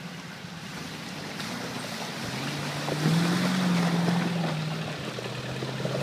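Engine of a lifted first-generation Range Rover working hard as it climbs a steep muddy bank, its pitch and loudness stepping up about two seconds in and staying high, over a rushing noise of the tyres churning mud and stones.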